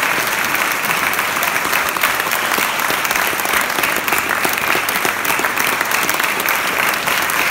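Audience applauding: many people clapping in a dense, steady patter.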